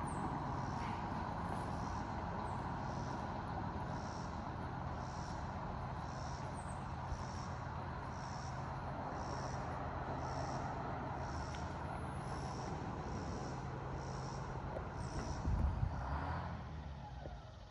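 Detroit Diesel 6-71 two-stroke inline-six in a coach bus, running steadily under load as the bus climbs a gravel road. It is heard from a distance and grows fainter near the end as the bus pulls away.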